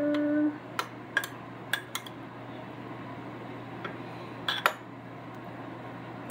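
A metal fork stirring diced beets in a glass bowl, clinking against the glass about six times in the first five seconds, loudest near the end.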